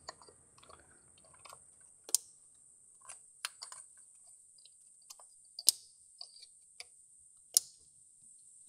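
Plastic wiring connectors clicking into place on the ignition coils of a Nissan QR25 engine: a scattering of sharp clicks, the loudest three about two, five and a half and seven and a half seconds in.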